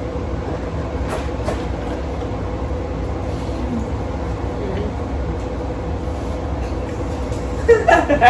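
Steady low background rumble with a thin constant hum, with a few faint clicks about a second in.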